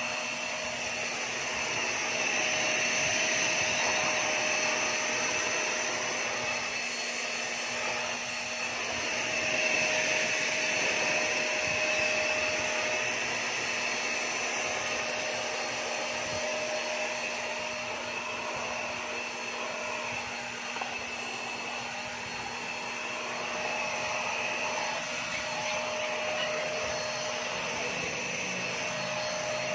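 Stick vacuum cleaner running steadily as it is pushed and pulled over a shag rug: a motor whine over a rush of air, swelling and easing a little with the strokes.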